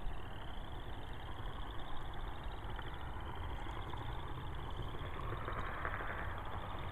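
A Ford F-150 race truck approaching from a distance, its engine a low steady rumble that grows louder a little over five seconds in.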